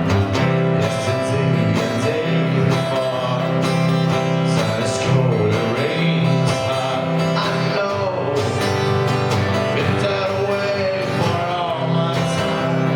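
Acoustic guitar strumming a song, with a wavering melody line carried over the chords.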